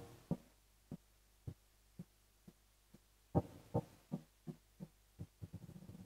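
Mutable Instruments Clouds granular processor, fully wet, putting out short pitched blips. A faint series at about two a second dies away, then a little past halfway a louder series begins that speeds up into a flutter as it fades.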